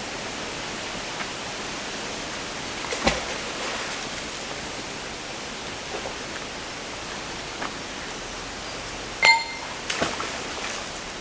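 Steady background hiss with a few sharp metallic clinks; the loudest comes about nine seconds in and rings briefly.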